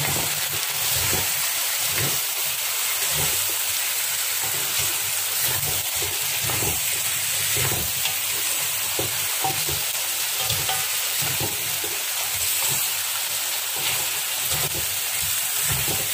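Pieces of goat meat frying in oil with spices in a metal wok, sizzling steadily. A spatula stirs them, with irregular scrapes and knocks against the pan.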